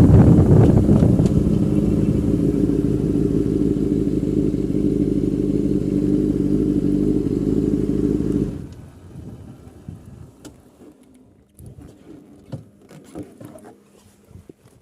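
Yamaha motorcycle engine easing down to a steady idle, then switched off suddenly about eight and a half seconds in. A few faint clicks and knocks follow.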